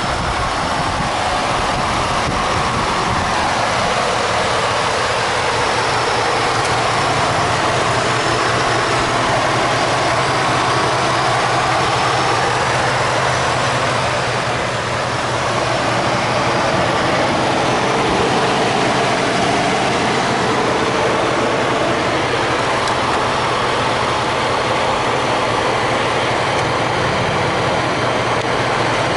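2011 Ford F-150's 5.0-litre V8 idling steadily, heard close up from the open engine bay.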